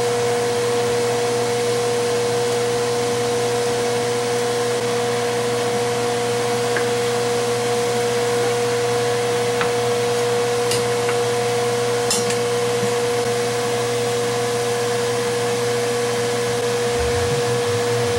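An electric fan motor running steadily: a constant whir with a steady hum, with a few faint clicks about halfway through.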